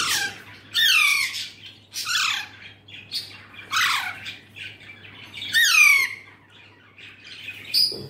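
Baby Alexandrine parrot squawking while it is held for syringe feeding: about five loud, harsh calls, each falling in pitch, a second or two apart.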